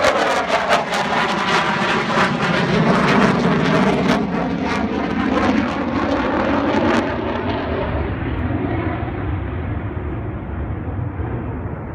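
Fighter jet flying past with loud jet noise, a sweeping tone that falls in pitch as it goes by, and rapid crackling. About two-thirds of the way through it dulls and fades as it moves away.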